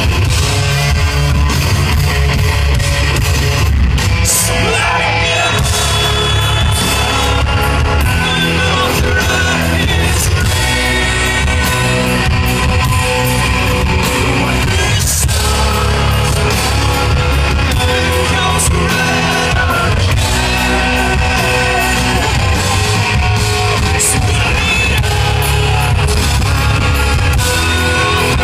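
Hard rock band playing live: distorted electric guitars, bass and drums with a male lead vocal singing over them, loud and continuous, heard from within the audience.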